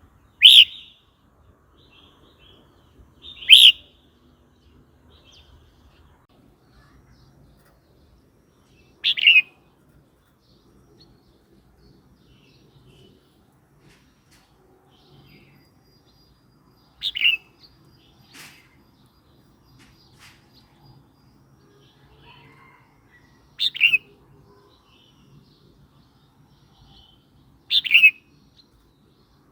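Red-whiskered bulbul singing: six short, bright whistled phrases, each under half a second, spaced a few seconds apart with gaps between.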